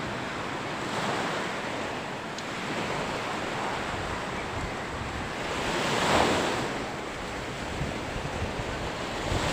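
Rough sea surf washing up the beach in repeated surges, the loudest wave about six seconds in, with wind buffeting the microphone.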